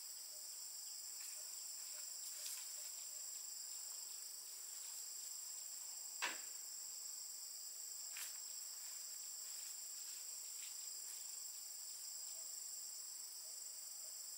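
Steady high-pitched chorus of insects, with a few sharp ticks over it, the loudest about six seconds in.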